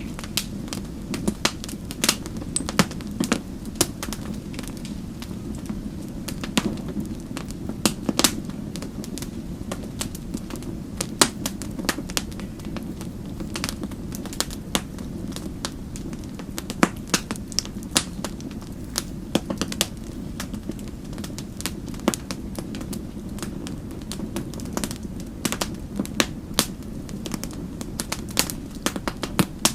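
Wood fire crackling: a steady low rumble of flames with frequent sharp, irregular pops and snaps.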